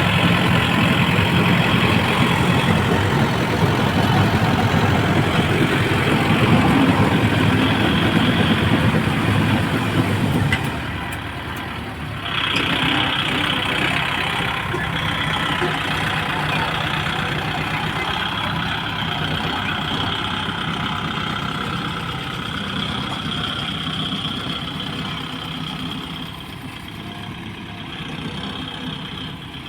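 Tractor engine running steadily; it drops away briefly about ten seconds in, picks up again, and then slowly fades.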